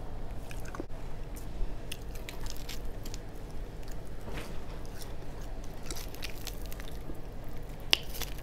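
Close-miked chewing and biting of fried, breaded flounder, with scattered short, sharp, wet mouth clicks. A steady low hum runs underneath.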